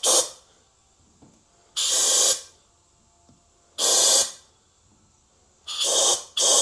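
Short blasts of compressed air from an air nozzle, about five in all, each about half a second long, with a quick pair near the end. They are bursts of an air check on a 6L80 transmission clutch drum, testing the piston and drum for leaks.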